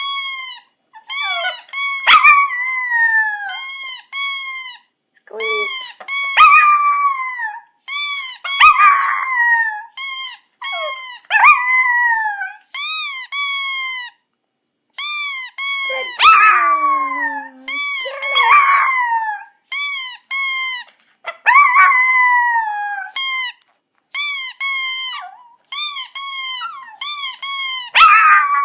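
A squeaky toy squeezed over and over in quick runs of high squeaks, with a chihuahua howling along in drawn-out calls that slide down in pitch.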